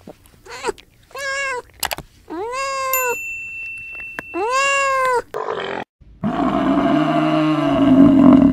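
Domestic cat meowing four times, each call rising and falling in pitch. About six seconds in comes a loud, rough, deep bellow from a bison, swelling toward the end.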